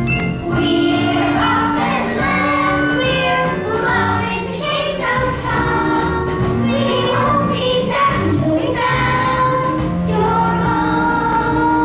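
A song: a group of voices singing sustained notes over instrumental backing.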